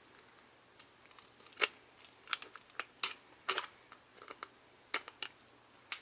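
Irregular sharp clicks and ticks of a metal nail file prying the metal staples out of a clear plastic blister pack.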